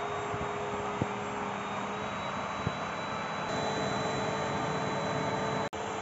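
Bosch BGS21X320 bagless canister vacuum cleaner running steadily with a high whine as its floor nozzle is worked over a laminate floor. Its tone steps up slightly about halfway through, and there are a couple of light knocks in the first half.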